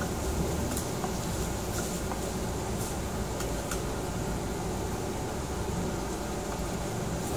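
Steady rushing hum of ventilation over a table grill, with a few faint clicks of metal tongs against the grill and bowls.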